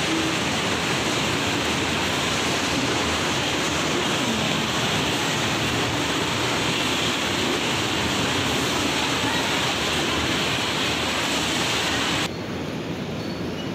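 Steady, dense din of a large garment factory floor, with many sewing machines and fans running at once. Near the end it drops suddenly to a quieter, thinner hum.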